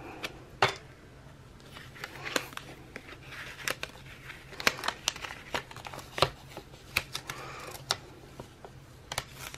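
Paper sticker sheets and planner pages being handled: crinkling and rustling, with scattered light clicks and taps as a sticker is peeled back up off the page and pressed down again.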